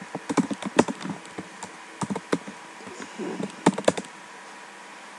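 Typing on a computer keyboard in short bursts: a quick run of keystrokes in the first second, a few more around two seconds in and another cluster near four seconds, then the typing stops. The keystrokes save the edited script file and re-run it from the terminal.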